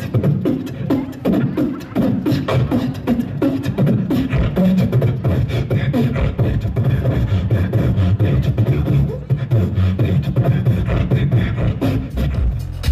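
A man beatboxing into a handheld microphone: a continuous rhythmic beat of mouth-made drum strokes over a deep bass line, with swooping pitched sounds in the first few seconds.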